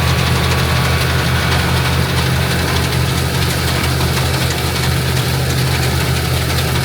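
Farm tractor engine running steadily at a constant speed, with no change in pitch.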